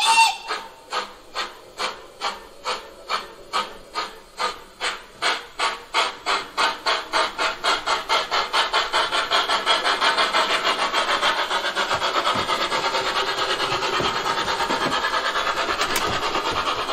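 Steam-exhaust chuffs from the ESU LokSound 5 sound decoder in a 1:32 Gauge 1 brass model of a Prussian T3 tank locomotive as it pulls away. The beats come about two a second at first and quicken steadily until they blur into a continuous chuffing hiss after about ten seconds.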